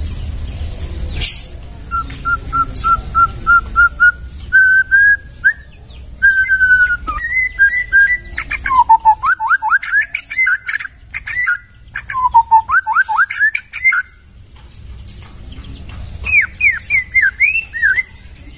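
White-rumped shama (murai batu) singing: a quick run of repeated clear whistled notes, about four a second, then phrases of varied rising and falling whistles with short pauses between them, over a steady low rumble.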